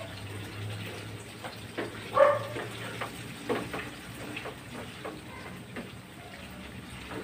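Coconut milk bubbling and sizzling in a pan as it cooks down until its oil separates and latik forms, with a spatula stirring and scraping the pan now and then, the loudest scrape about two seconds in.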